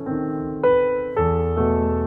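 Background piano music: slow, gentle notes and chords, a new one struck about every half second and left to fade.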